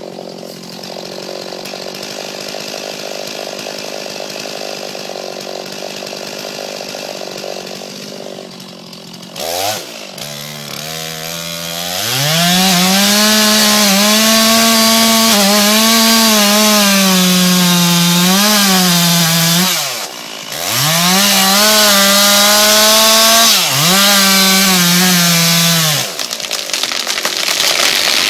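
Chainsaw cutting into a large fir. The saw runs at low speed for the first several seconds, revs up at about ten seconds, and then runs at full throttle in the felling cut, its note sagging and recovering under load. It is let off briefly twice and drops back near the end.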